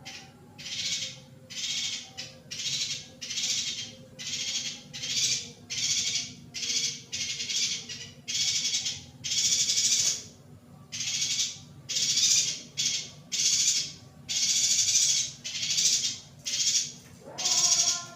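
Female yuhina giving a steady series of short buzzy calls, a little under two a second. A lower rising tone comes in near the end.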